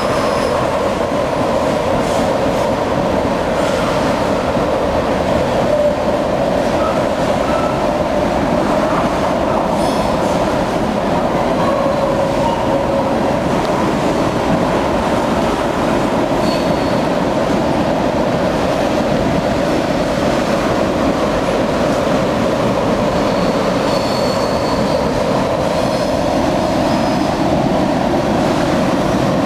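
A freight train of ethanol tank cars rolling by at close range: a steady, loud rumble and rattle of steel wheels on the rails, with a faint high wheel squeal now and then.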